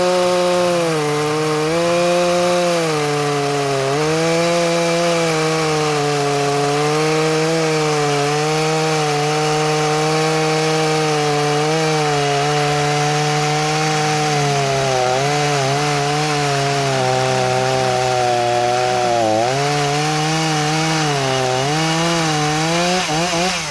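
Rebuilt Shindaiwa 488 two-stroke chainsaw, fitted with an aftermarket cylinder, cutting through logs at high revs, its pitch dipping again and again as the chain bogs in the wood and recovering between dips. The carburettor is set to run rich. Near the end the engine comes off the throttle and drops in pitch and loudness.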